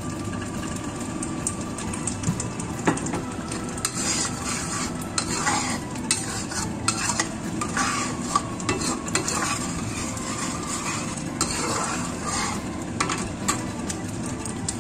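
Blended onion, garlic and candlenut spice paste frying in oil in a steel wok, sizzling as a metal spatula stirs it, with many sharp scrapes and clicks of the spatula against the pan. The paste's water has cooked off and the oil has just gone in: the frying stage of the paste.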